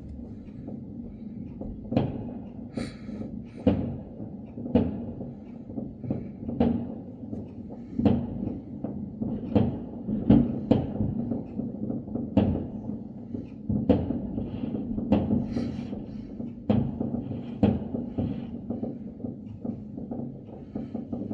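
New Year's fireworks going off at a distance: irregular, muffled bangs, about one a second, over a low rumble.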